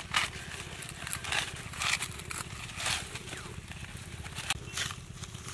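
Dry maize stalks and husks crackling and rustling in short bursts as ears of corn are snapped off by hand, over a steady low hum.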